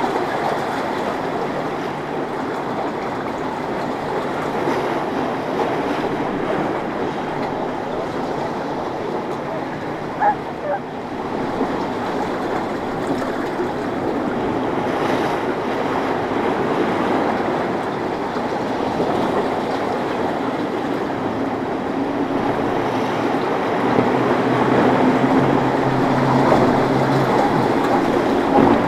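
Motorboat engines running through rough inlet water mixed with the wash of waves and surf, a steady rumble throughout. A boat's engine hum comes up louder near the end.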